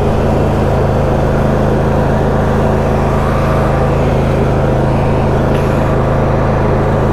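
Husqvarna YTA22V46 lawn tractor's 22-horsepower V-twin engine running steadily at full throttle while the tractor drives at about 7 miles an hour.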